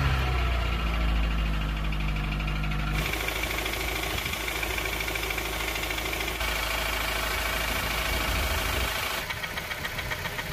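Honda K20A4 2.0-litre four-cylinder engine of a 2003 CR-V idling with a fast, repetitive knocking, tapping noise. The owner found no camshaft lobe galling and suspects incorrect valve clearance rather than piston slap.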